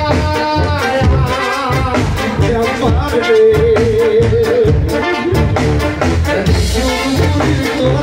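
Romanian brass band playing live with a male singer: brass and tuba over a steady bass-drum beat. About three seconds in, the singer holds one long wavering note.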